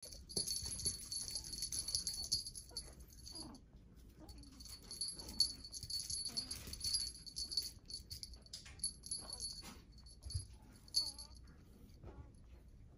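Small jingle bell on a cat wand toy tinkling and jingling as it is dragged and batted, with soft rustling and light taps of a kitten's paws on fabric. The jingling is nearly continuous at first, stops briefly about four seconds in, then becomes more broken toward the end.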